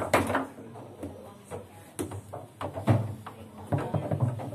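Foosball table in play: irregular sharp knocks and clacks as the ball strikes the plastic players and table walls and the rods slam and rattle in their bearings.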